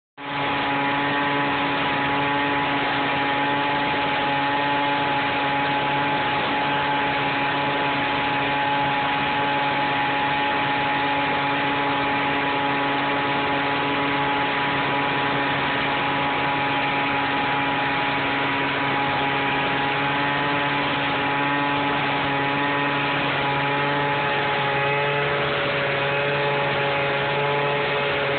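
Homemade corn blower: a small blower running steadily, forcing air through PVC pipe up through a trash can of cracked corn to blow out the dust and chaff. Its tone shifts slightly near the end.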